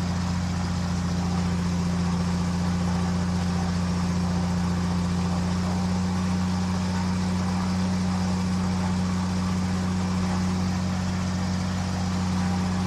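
KR2 light airplane's engine and propeller held at about 1800 RPM for the pre-takeoff run-up with the brakes set, running at a steady, unchanging drone.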